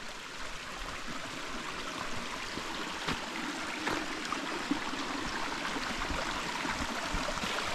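Small mountain stream running over rocks: a steady rush of water, with a few faint knocks about three and four seconds in.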